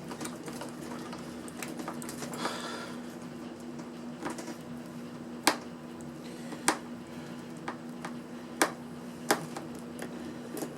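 Scattered sharp clicks and taps of hand tools and a plastic casing as a portable jump-starter power pack is unscrewed and taken apart, with a brief rustle about two seconds in. A steady low hum runs underneath.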